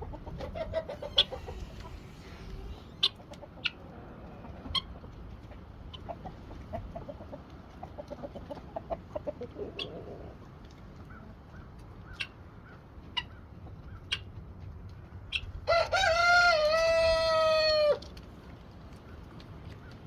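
Chickens clucking and giving short scattered calls over low wind rumble on the microphone, then a rooster crows once, loud and long, near the end.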